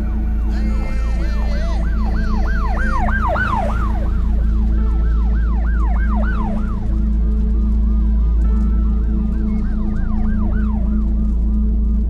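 Several emergency sirens sounding together in quick rising-and-falling sweeps that overlap one another, over a steady low rumble.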